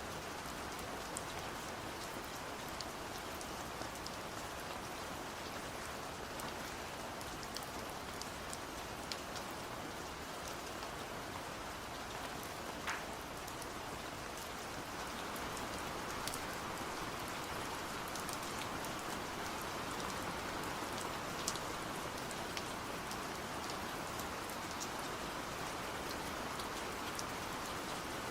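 Steady rain falling, with individual drops ticking on a surface. It grows slightly heavier about halfway through.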